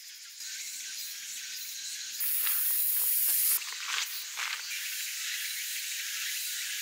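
Footsteps on a dirt and gravel road, heard as a few short scuffs about halfway through, under a steady high-pitched hiss of summer insects that grows louder for a second or so from about two seconds in.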